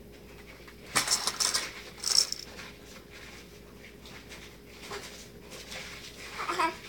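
Small plastic toys clattering and rattling as a baby handles them, in two bursts about one and two seconds in. A short baby vocalization near the end.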